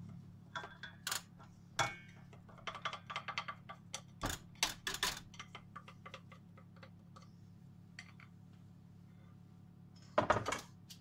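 Light, irregular clinks and taps of a glass bowl against a stainless-steel stand-mixer bowl as powdered sugar is tipped in, busiest in the first five seconds with a short burst again near the end, over a low steady hum.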